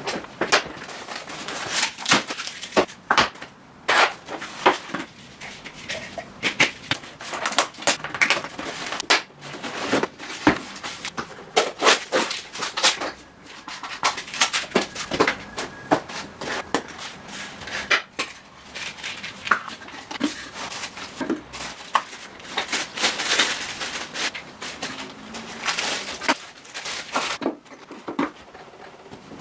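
A parcel being unwrapped by hand: paper and packing tape torn and rustled, then wooden tool boxes handled and knocked on a steel bench top and opened, with light clinks of lathe cutting tools. Irregular rips, rustles and knocks, dying down near the end.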